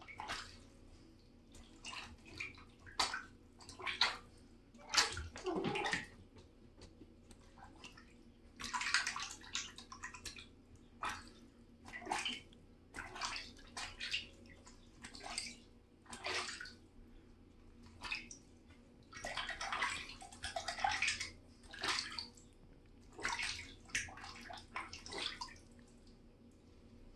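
Goslings paddling and dabbling in shallow bathtub water: irregular small splashes and sloshes, a few a second in clusters with short quiet gaps between them.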